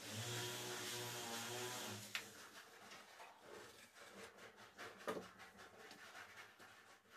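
A steady low hum that stops about two seconds in, then faint scraping and light clicks of hand work on large wall tiles and their levelling clips.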